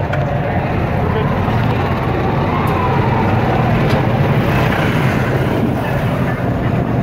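Golf cart driving along, a steady running noise of the cart in motion.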